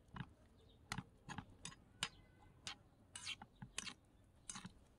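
Small spoon stirring octopus curry in a miniature wok, giving faint, irregular clinks and scrapes against the pan at about two a second.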